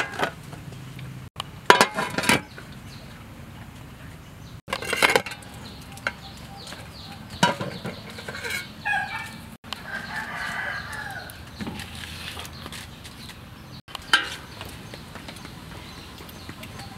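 Chickens clucking in a yard, with a rooster crowing once about ten seconds in. A few sharp metallic knocks from an aluminium steamer pot and its lid come in the first seconds.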